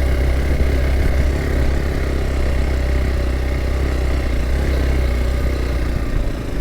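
Hero Xpulse 200 4V's single-cylinder engine running steadily as the motorcycle climbs a rocky trail.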